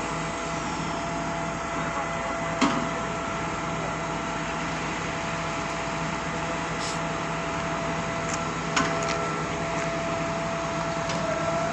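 Concrete pump machinery running steadily with a constant hum, with two sharp metallic knocks a few seconds apart.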